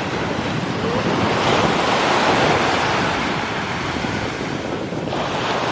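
Sea water rushing and wind buffeting the microphone: a steady noise that thins briefly about five seconds in.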